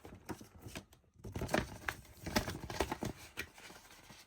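A plastic Blu-ray case and its paper artwork insert being handled: irregular rustling and small clicks, busiest from about a second in until about three seconds in.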